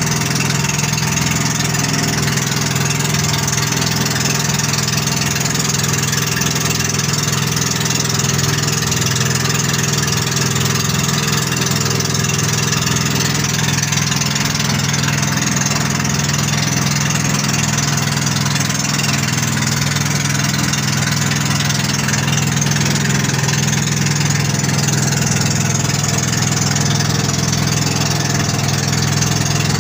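Outrigger boat's engine running steadily at cruising speed, a constant low drone with a hiss of water and wind over it.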